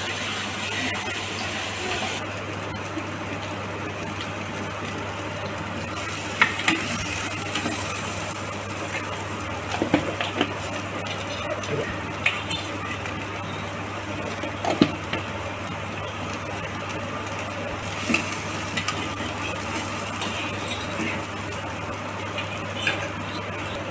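Mixed vegetables sizzling in a pan as a metal spoon stirs them, with scattered sharp clicks and scrapes of the spoon against the pan, over a steady low hum.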